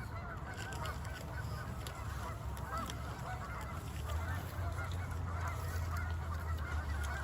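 A flock of geese honking: many overlapping calls at once, with a low steady rumble underneath that grows from about two seconds in.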